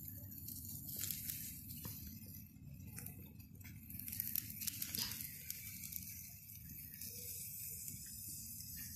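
Meat skewers sizzling on a wire grill over wood embers, with faint scattered crackles over a low steady rumble.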